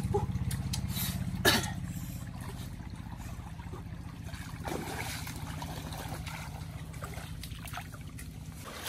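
Shallow stream water trickling and splashing around people wading through it, with one sudden sharp sound about a second and a half in. A low steady hum runs underneath and fades near the end.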